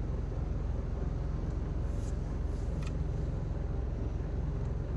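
Steady low rumble of a ute's engine running at idle, heard from inside the cab, with one sharp click about three seconds in.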